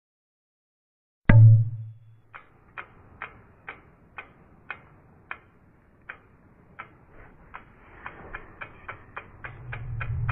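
After a silent second, one sudden loud low hit, then a steady clock-like ticking at about two ticks a second that quickens to four or five a second. A low rumble swells in near the end.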